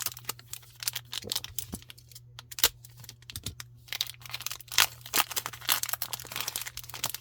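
A foil trading card booster pack wrapper crinkling and crackling as it is handled and torn open, in a rapid, irregular run of crackles over a steady low hum.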